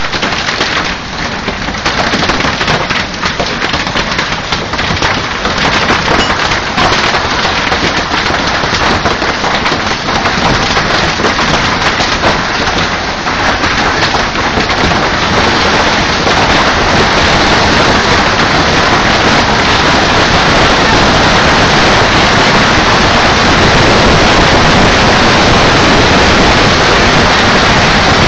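Heavy rain pouring down, at first with many sharp drop hits crackling through it, then settling into a steady, slightly louder downpour hiss about halfway through.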